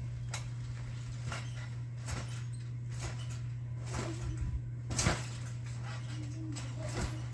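Scattered light taps and clicks, about one a second, the loudest about five seconds in, over a steady low electrical hum.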